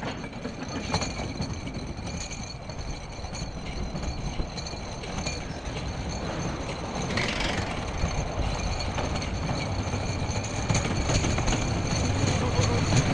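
Small two-seat roller coaster car running along its track: a steady rumble and clatter of wheels on the rails, growing louder toward the end.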